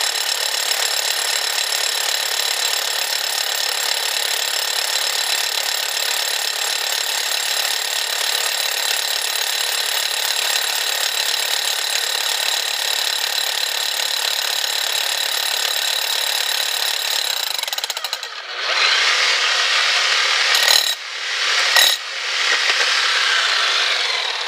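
Bosch 11245EVS rotary hammer drilling into hard rock with a dull 1.5-inch bit, a steady rapid hammering. About three-quarters of the way through the sound turns louder and rougher and cuts out briefly twice.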